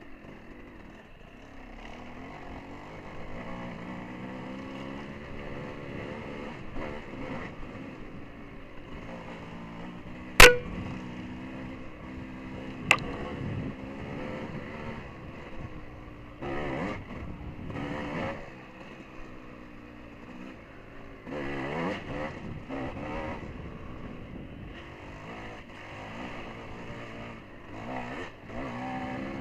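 Dirt bike engine running and revving up and down as it is ridden, with several surges of throttle. Two sharp knocks about ten seconds in, the second some two and a half seconds after the first.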